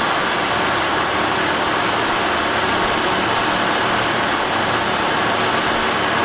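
Railway track maintenance machinery running with a steady, loud mechanical noise.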